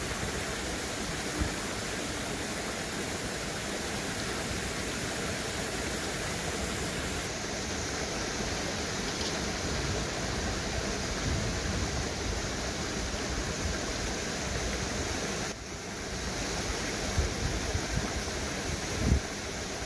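Steady rush of a flowing stream, with a few soft low thumps near the end.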